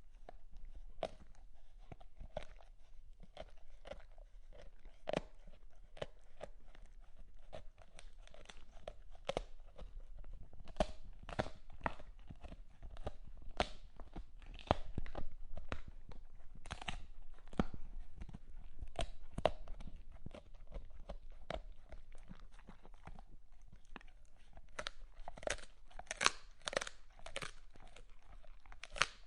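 A dog chewing, with irregular crunching bites and wet jaw clicks, several a second, growing denser and sharper near the end.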